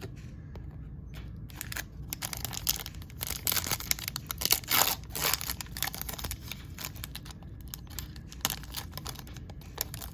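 A trading card pack's plastic wrapper being torn open and crinkled in the hands, a dense crackle that is loudest about halfway through.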